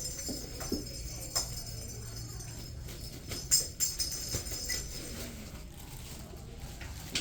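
Small jingle bells rattling in irregular shakes, as a bell cat toy is moved about, with the loudest jingles near the middle.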